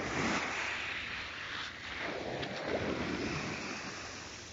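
Small waves breaking and washing up a shingle beach, a rushing hiss of foaming surf that surges twice and fades near the end.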